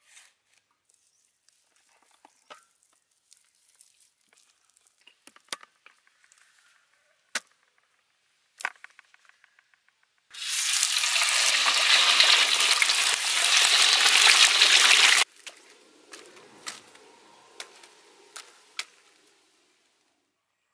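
Whole fish deep-frying in hot oil: a loud, dense sizzle starts about halfway through, lasts about five seconds and cuts off abruptly. Fainter crackling and scattered clicks come before and after it.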